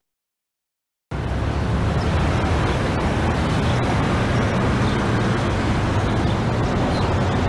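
Near silence for about a second, then a recorded city street-traffic ambience starts suddenly and runs on loud and steady, heavy in low rumble.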